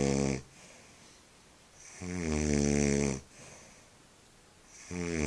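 A man snoring loudly in deep sleep, with a buzzing snore about every three seconds. One snore ends just after the start, a second runs for about a second from two seconds in, and a third begins near the end.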